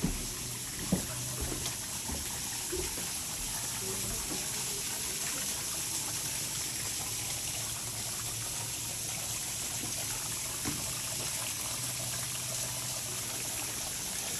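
Water from a garden hose running into a hot tub, a steady splashing hiss. A few sharp knocks in the first two seconds, the loudest about a second in.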